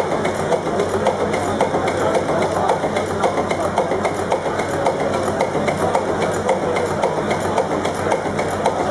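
Old multi-cylinder marine diesel engine idling steadily, with an even, rapid beat of knocks.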